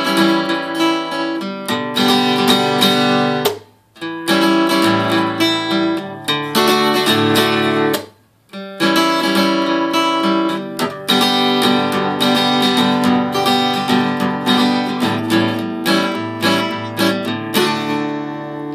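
Acoustic guitar strummed solo, one chord after another, with two short stops where the sound drops out, about four and eight seconds in.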